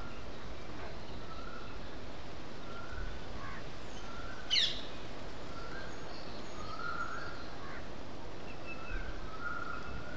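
Several birds chirping and calling in short repeated notes over a steady outdoor hiss, with one brief, quick high sweeping note, the loudest sound, about halfway through.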